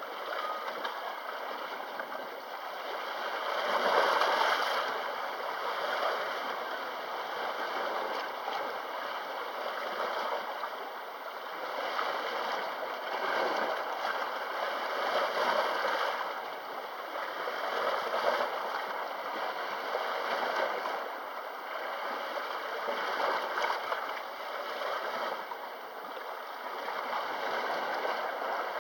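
Sea waves washing against the shore, swelling and falling back every few seconds.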